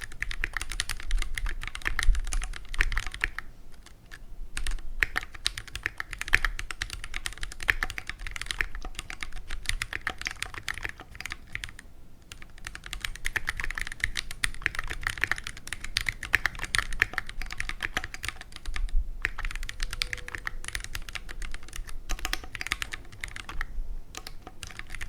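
Continuous typing on a Keychron Q1 mechanical keyboard with Phantom Red linear switches, in its stock, unmodified state: rapid runs of keystroke clacks broken by a few brief pauses.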